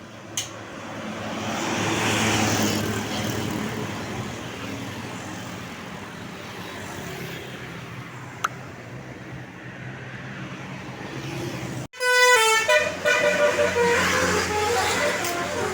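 A bus passing, its engine and tyre noise swelling over the first few seconds and then fading. After a sudden cut about twelve seconds in, a 'telolet' multi-tone bus horn plays a quick run of notes that step up and down in pitch.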